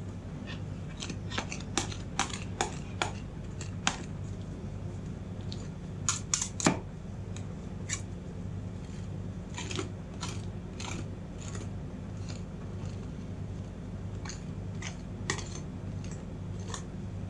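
Metal spatulas tapping and scraping over frozen ice cream mix on a steel cold plate: irregular sharp clicks, with a quick cluster of louder clacks about six seconds in, over a steady low hum.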